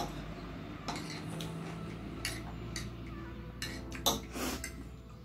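Metal fork and spoon clinking and scraping against a plate of chow mein while eating, a string of sharp clinks with the loudest cluster about four seconds in.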